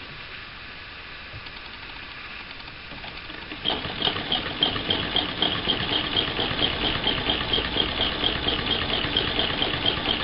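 1937 Frister and Rossmann transverse-shuttle sewing machine starting up about three and a half seconds in and stitching steadily: an even, rapid mechanical clatter with regular clicks as the fabric feeds through.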